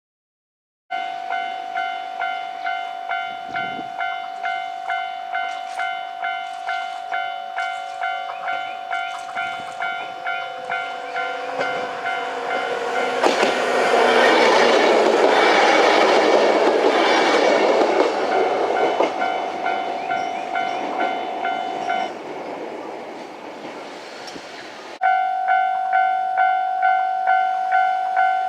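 Japanese level-crossing alarm ringing in steady pulses, about two a second. About 13 s in a 103 series electric train passes over the crossing, its rush of noise and wheel clacks drowning the alarm for several seconds; the alarm stops soon after the train has gone, then rings again near the end.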